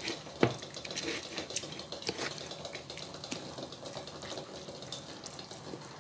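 Metal utensil stirring an oily chopped salad in a plastic bowl: wet scraping and irregular clicks against the bowl, with one sharper knock about half a second in.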